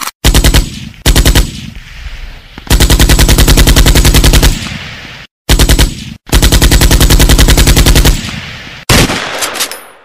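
Machine-gun fire sound effect: automatic gunfire in several bursts at roughly a dozen rounds a second. Short bursts alternate with two long ones of nearly two seconds each. A last shot near the end rings off.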